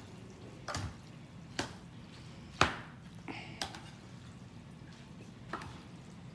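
Metal tongs tossing sauced spaghetti in a stainless steel roasting pan: about six sharp clicks and taps of the tongs against the pan and each other, spread out, the loudest about two and a half seconds in, amid wet noodle sounds.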